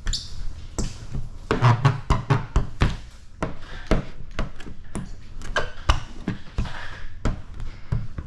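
Squeegee being worked across wet paint protection film on a truck hood: irregular sharp taps and clicks, with a few short rubbing strokes of the squeegee over the slick film.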